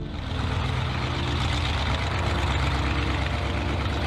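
Fieseler Storch's propeller engine running steadily at low power as the aircraft taxis.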